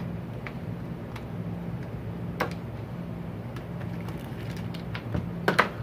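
Sharp clicks and knocks of the plastic trimmer engine housing and loose parts being handled and turned over on a wooden workbench, over a steady low background hum; a few louder knocks come together near the end.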